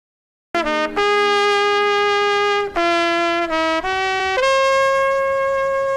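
Solo trumpet playing a slow phrase of held notes. It starts about half a second in with a short note, moves through a long note and a few shorter ones, and ends on a long, higher held note.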